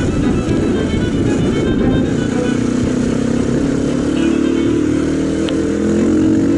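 Mondial RX3i Evo motorcycle's single-cylinder engine running while riding at low town speed, with road and wind rumble. In the second half the engine note rises steadily as the bike accelerates out of a corner.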